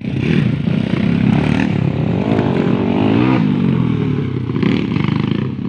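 Honda XRM underbone motorcycle's single-cylinder four-stroke engine revving on a dirt track. Its pitch rises and falls several times through the middle.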